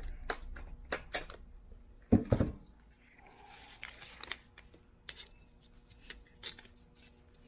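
Scattered clicks and knocks of a tape measure being handled and laid against a screwdriver to measure it, with a louder knock about two seconds in and a faint rustle around four seconds in.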